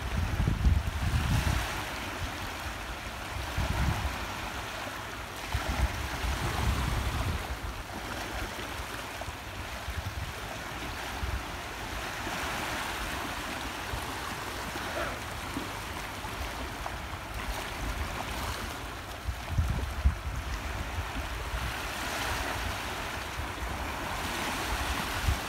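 Small waves washing in over a rocky reef shore and lapping against the rocks, swelling and easing every few seconds, with low gusts of wind rumbling on the microphone.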